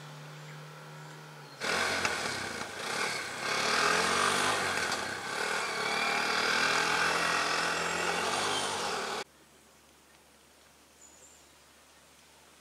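A low steady hum, then a small engine running loudly close by, its pitch wavering up and down. It starts and cuts off abruptly after about seven and a half seconds, leaving quiet outdoor background with a few faint bird chirps.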